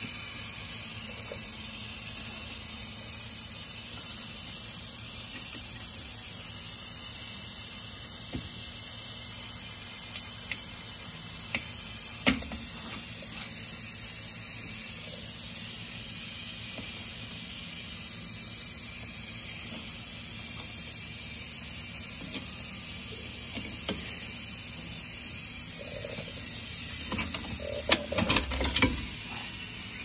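Steady background hiss, with a few sharp metal clicks a little before halfway and a run of metal clanks and clinks near the end as the rear drum brake shoes and their springs are worked off the backing plate.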